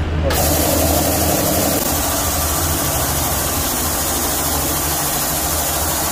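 Electric belt-driven three-cylinder piston air compressor starting up about a third of a second in, then running steadily: a loud, even hiss over a low hum.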